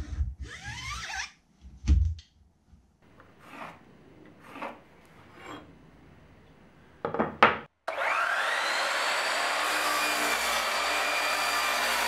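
A few knocks and faint pencil scratches on a pine board, then a miter saw motor starts about two-thirds of the way in, its whine rising quickly and settling into a steady run as the blade cuts through the pine board.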